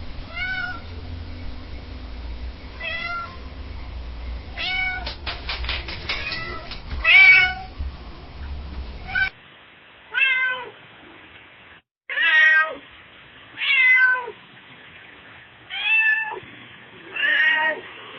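Domestic cat meowing repeatedly in two separate recordings. In the first, the meows come a few seconds apart over a low hum. A second, cleaner recording starts about nine seconds in, with louder meows about every two seconds.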